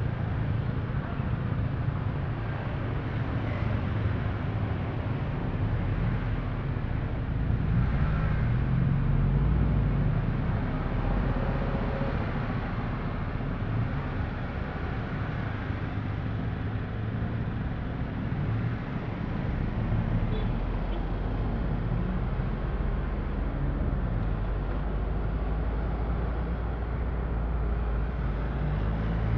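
A car driving in slow town traffic: a steady low engine and road rumble whose engine note shifts up and down with speed, a little louder about a third of the way in.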